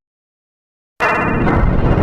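Dead silence, then about a second in a loud, harsh, noisy sound effect cuts in abruptly and keeps going. It is one of a string of error and shutdown effects.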